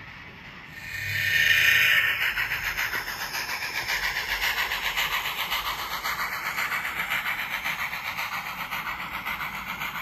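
Sound-equipped N scale model of a USRA 4-8-2 Mountain steam locomotive passing close by with its freight cars. The locomotive's sound decoder gives a steady, rhythmic steam chuffing, mixed with the running noise of the wheels on the track. It gets loud about a second in.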